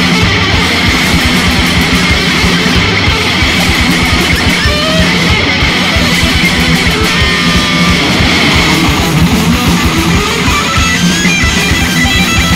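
Thrash metal band playing an instrumental passage, without singing: distorted electric guitars riffing over bass and drums, at a steady, driving pace.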